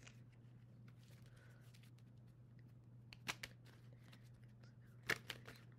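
Tarot cards being handled quietly, with two short sharp card snaps about three and five seconds in, over a faint steady low hum.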